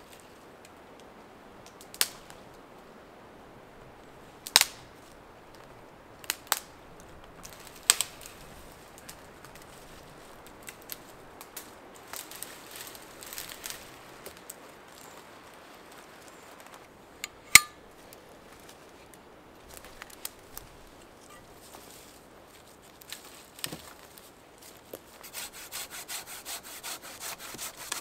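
Dead conifer branches snapping as they are broken off by hand: half a dozen sharp single cracks spread well apart, with quieter crackles between them. Near the end a hand saw starts cutting a dead branch in quick, even strokes.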